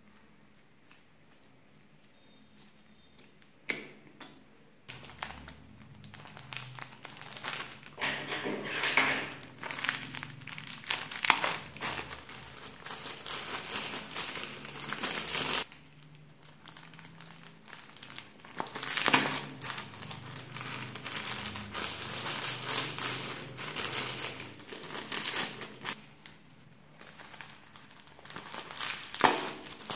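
Small plastic bags of foam beads crinkling in the hand as the beads are shaken out onto slime. It comes in two long stretches of crackling, several seconds each, after a few quiet seconds at the start.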